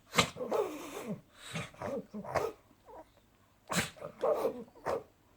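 Pug reverse sneezing: a run of quick, forceful noisy gasps in through the nose, a pause of about a second, then a second run that stops shortly before the end.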